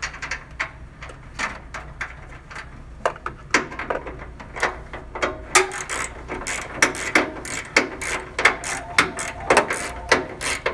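Hand ratchet clicking as a bolt is driven into the vending machine's cooling-deck frame. The clicks are sparse at first, then come in a steady run of about two or three a second from about three and a half seconds in.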